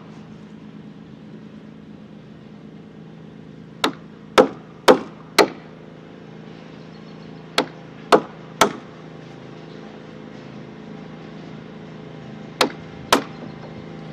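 Square wooden mallet striking a framing chisel into a timber rafter while chopping out a bridle joint: sharp knocks in three runs of four, three and two, about two a second.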